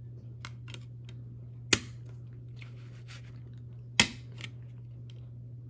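Plastic DVD case and discs being handled: two sharp clicks, about two seconds apart, as the discs are snapped off and onto the case's centre hub, with lighter taps between. A faint steady low hum runs underneath.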